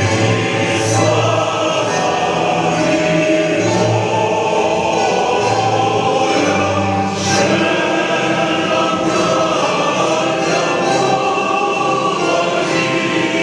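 A choir singing a slow piece in long held notes.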